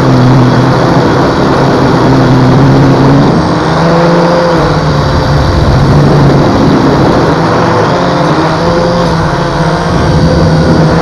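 Holy Stone HS300 quadcopter's motors and propellers running close up, as heard by the camera mounted on the drone: a loud, steady rushing noise with several humming tones that shift up and down in pitch as the motor speeds change while it manoeuvres.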